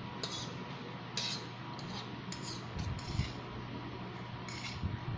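Eating utensils scraping and clinking against a plate and dishes in a series of short, irregular scrapes.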